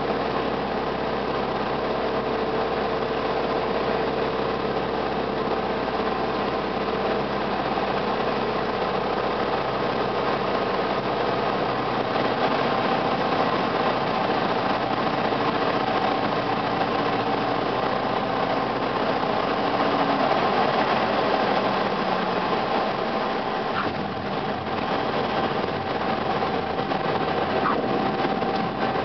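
Light single-engine propeller airplane heard from inside the cockpit during landing: the engine and propeller running steadily over rushing air. About twelve seconds in the lowest part of the engine's sound drops away and the tone changes.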